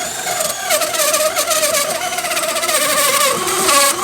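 Power drill spinning a hole saw as it cuts through a wooden door: a steady motor whine that wavers as the teeth bite. About three and a half seconds in the pitch drops lower as the drill slows under the load.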